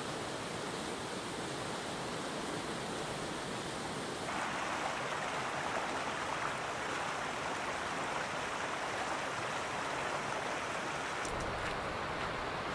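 Steady rush of running water from a mountain stream. It jumps to a louder, fuller rush about four seconds in, and a deeper rumble joins it near the end.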